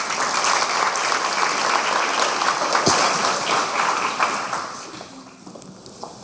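Audience applauding, loud for about the first four seconds and then dying away.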